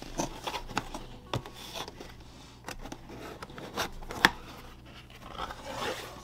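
Hands handling and opening a cardboard box: a run of taps, knocks and scrapes on the cardboard, with one sharp knock a little after four seconds in and a longer scraping rustle near the end as the lid is lifted.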